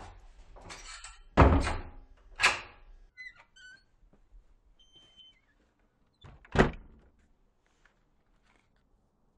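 Doors being opened and shut: a heavy wooden thunk about a second and a half in, another knock a second later, a few faint metallic clinks of a latch, then a sharp door bang near the end.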